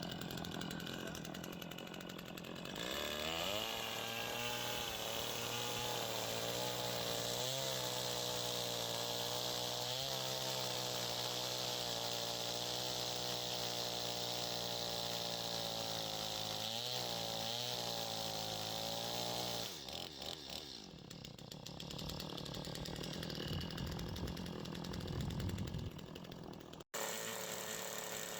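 Gas-powered saw engine milling lumber: it comes up to speed about three seconds in and runs steadily under load, with a few brief dips in pitch, until it drops away about twenty seconds in. A fainter machine sound follows, and the audio cuts off abruptly near the end.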